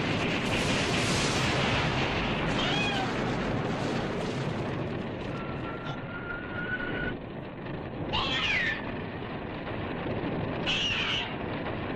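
A cat meowing three times, short calls that rise and fall in pitch, over a steady noisy rumble. A thin steady tone sounds for about two seconds midway.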